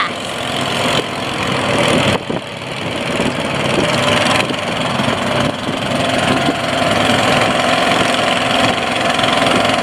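Small river boat's motor running steadily at speed, a loud even drone.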